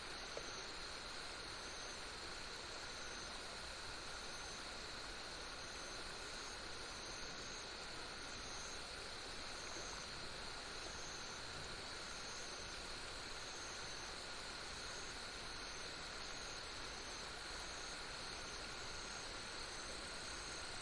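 Night insects such as crickets calling steadily, several overlapping continuous trills with one chirp repeating about once a second.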